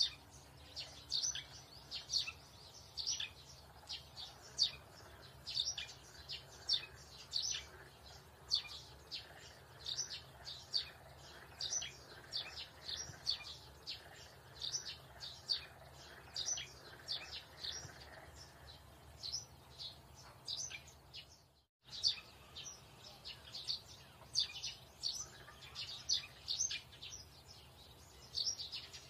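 Small birds chirping in quick runs of short, high calls, with a brief gap about three-quarters of the way through.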